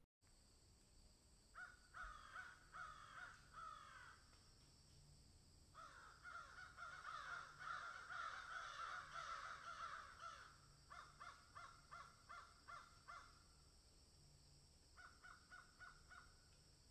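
Harsh, crow-like bird calls repeated in bouts, at times several overlapping, at times evenly about three a second, over a faint steady hiss.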